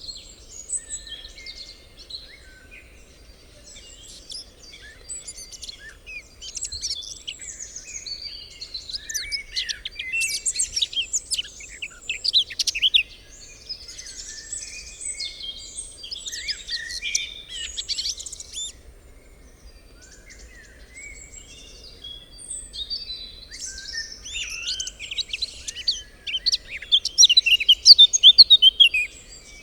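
Several songbirds singing and chirping together in a forest, with busy overlapping phrases that thin out around the middle and build to the loudest stretch near the end.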